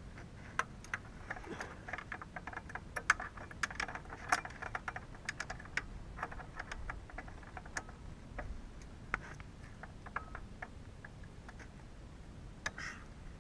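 Irregular small metallic clicks and clinks of hand tools worked on the bolts of a hitch under a snowblower. There is a quick run of them in the first few seconds, then fewer, scattered ones.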